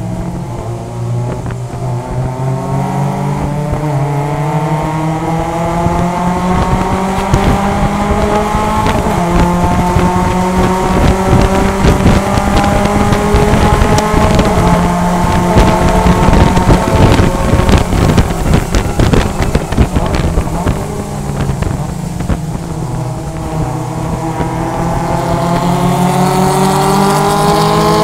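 Mazda MX-5 Cup race car's 2.0-litre four-cylinder engine heard from inside the cockpit at race pace on a wet track. The engine pulls hard with its pitch climbing steadily and holds near the top, then drops as the car slows for a corner about two-thirds of the way through. It climbs again near the end, over wind and road noise.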